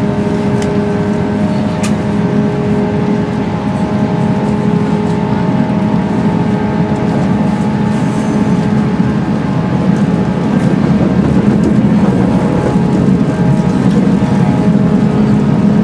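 A 185 series electric train heard from inside a passenger car while running: steady running noise with several constant humming tones over it. It grows a little louder about two-thirds of the way through.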